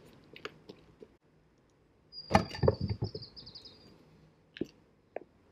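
Footsteps and a handful of knocks and scuffs, loudest about two seconds in. At the same moment a small bird sings a high note followed by a short trill.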